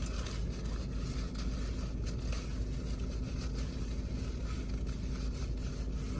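Steady low rumble of a car, with a faint steady hum running through it.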